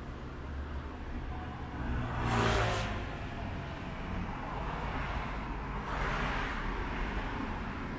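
Street traffic: a steady low rumble of road vehicles, with one passing close by about two and a half seconds in and another around six seconds.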